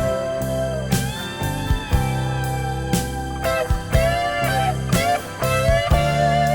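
Recorded music played from a vinyl record through an Ortofon SPU 1E moving-coil cartridge: a lead line that glides in pitch, over a steady drum beat.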